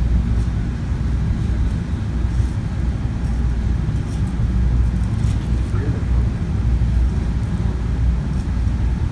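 Steady low background rumble of room noise, with faint voices in the background; the knife working through the fish is not clearly heard.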